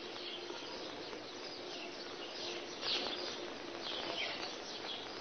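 Faint outdoor ambience: a steady hiss with a few short bird chirps, one about halfway through and one near the end.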